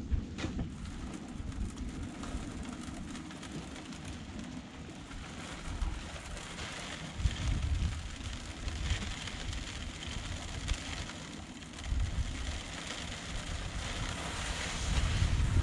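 Dry concrete mix pouring from a bag into a snap-jacket piling form, a steady hiss that builds from about five seconds in. Wind buffets the microphone throughout.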